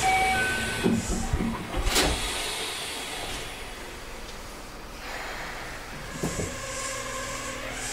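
Yokohama Type 10000 subway train's Mitsubishi IGBT-VVVF linear-motor drive. A few clunks and a sharp click come about two seconds in. From about five seconds the inverter's whine starts rising in pitch as the train begins to pull away.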